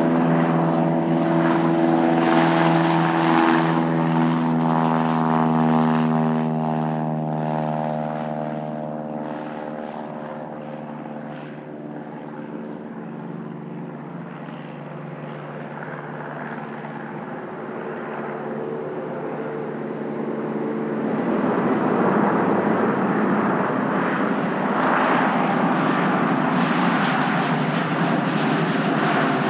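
Cessna 172S Skyhawk SP's four-cylinder piston engine and propeller at takeoff power: a steady, many-toned drone whose pitch sinks slightly as it fades while the plane climbs away. About 21 s in it gives way to the louder, rushing, less tonal sound of a Cirrus SR20 passing close over the runway.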